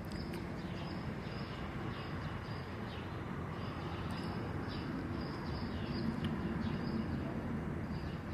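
Small birds chirping, with short high notes repeating several times a second, over a steady low rumble of distant traffic.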